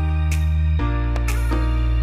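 Background music: sustained low bass chords that change a little under a second in, with plucked melody notes over them and a soft beat about once a second.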